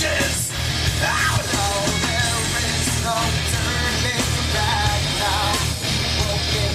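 Loud nu-metal track with a singer's voice playing over a bar's sound system.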